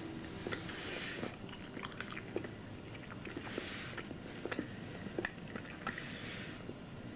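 A person chewing food noisily: repeated crunching bursts with small clicks.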